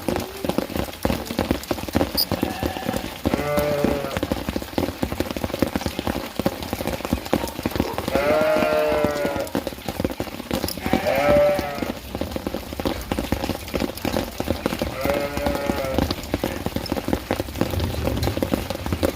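Goats bleating four times, each call about a second long, over steady rain pattering.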